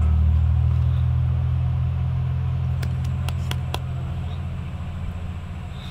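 Background music ending on a held low bass chord that fades away slowly, with a few light clicks about three seconds in.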